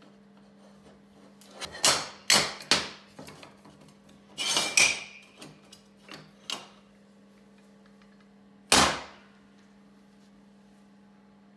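Steel square tubing and magnetic welding holders knocking and snapping down onto a steel workbench: a quick run of sharp metal knocks about two seconds in, a short ringing clatter midway, then one loud knock later on. A faint steady low hum lies underneath.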